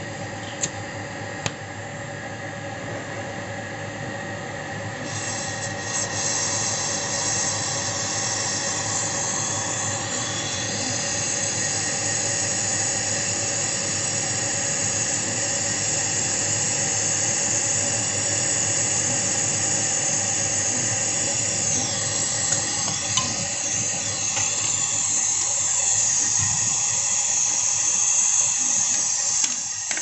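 Gas brazing torch hissing steadily as its flame heats the pinched-off copper charging tube of a refrigerator to seal it permanently. The hiss grows louder and brighter from about five seconds in, over a steady hum from the refrigerator compressor, which is still running. There are two sharp clicks near the start.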